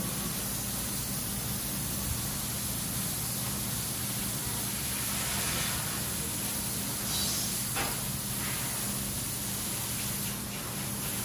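CNC laser cutting machine cutting a metal sheet: a steady hiss over a low, steady hum, with a brief tick about eight seconds in.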